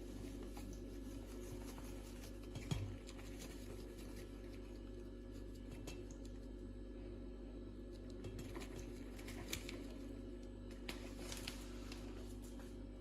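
A steady low hum with light clicks and scrapes of handling, and one louder knock a little under three seconds in.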